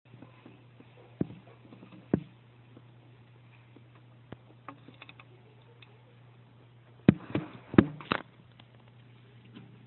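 Handling noise from a phone: scattered clicks and knocks over a steady low hum, with a cluster of louder knocks about seven to eight seconds in as the phone is moved.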